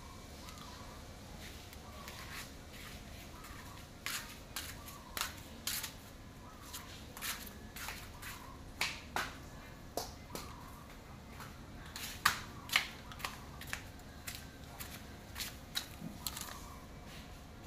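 Irregular sharp clicks, sometimes two or three close together, starting about four seconds in and stopping shortly before the end, over a low steady background noise.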